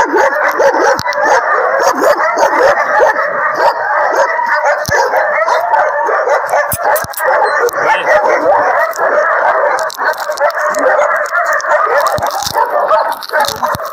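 Many kennel dogs barking and yelping at once in a loud, unbroken din.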